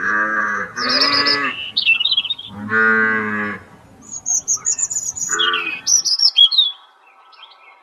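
Cattle mooing, several drawn-out calls, with birds chirping in the background from about four seconds in.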